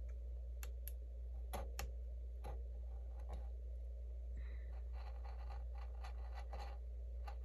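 We R Memory Keepers pen-style craft knife cutting a slit in cardstock: faint scratchy ticks of the blade drawn through the paper, a few at first and more often from about halfway, as the slit is opened wider.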